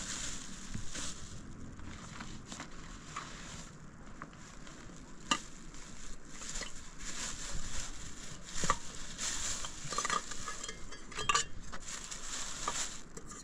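Footsteps crunching and scraping on a path, with irregular clicks among them.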